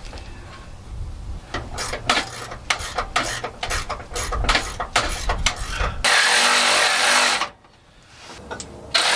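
Ratchet wrench clicking in quick, uneven strokes as a Nylock lock nut is run down and tightened on the stud of an Air Lift air-spring bracket. The clicking is followed by a loud hiss lasting about a second and a half.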